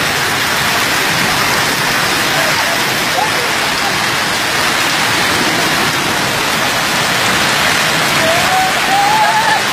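Heavy storm rain and floodwater running through a street: a loud, steady hiss of water with no letup.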